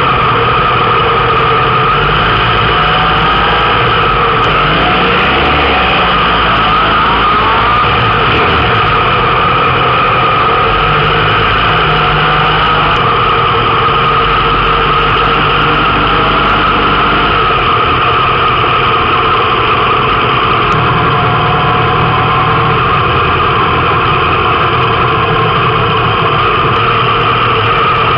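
Motorcycle engines running steadily at low speed, with other bikes idling nearby; a few seconds in, an engine rises and falls in pitch.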